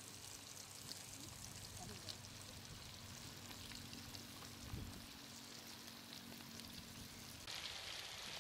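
Chicken kola urundai (spiced minced-chicken balls) deep-frying in a kadai of hot oil, the oil sizzling and crackling steadily around them. The sizzling gets louder and brighter about seven and a half seconds in.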